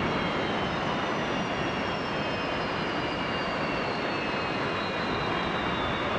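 Jet engine noise: a steady rushing sound with a high whine that slowly falls in pitch.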